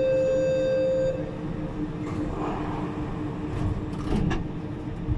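Siemens VAL 208 rubber-tyred automatic metro train running through a tunnel, heard from inside the car: a steady rumble with a high steady tone that stops about a second in, and a few sharp clicks around four seconds in.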